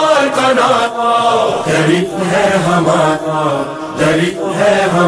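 Urdu noha, a Muharram lament for Abbas, sung by a male voice in long, wavering held notes between lines of the verse.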